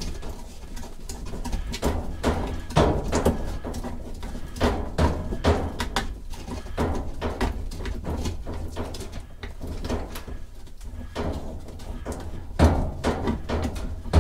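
Pliers and a washing machine water hose fitting knocking and clicking irregularly as the hose is worked off its wall valve, with a couple of louder clunks.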